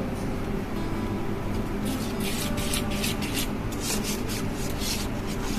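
Wire balloon whisk beating thin rice batter in a stainless steel pan: a quick scraping swish repeated about four to five times a second, starting about two seconds in, over a steady low hum.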